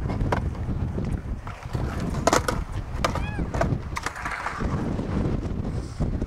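Skateboard wheels rolling over concrete in a steady low rumble, with several sharp clacks of the board, over wind on the microphone.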